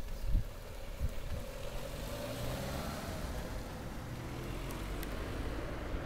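A car driving past at low speed, its engine humming steadily with tyre noise that swells and then eases off as it goes by. A few low bumps near the start.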